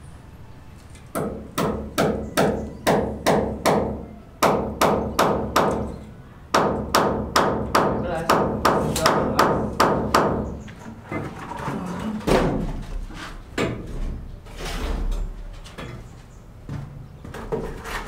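Hand hammer striking overhead in quick runs of blows, about three a second, with short pauses between runs; in the last several seconds the blows turn sparse and softer, with some dull low thuds.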